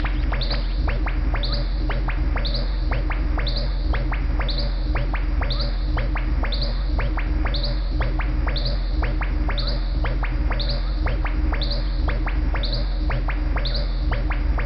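Buchla and Eurorack modular synthesizer playing a steady low drone, with short high bird-like chirps repeating about once a second over clusters of sharp clicks.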